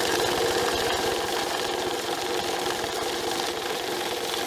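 Electric bill counter running, its motor humming as it riffles rapidly through a stack of one-dollar bills.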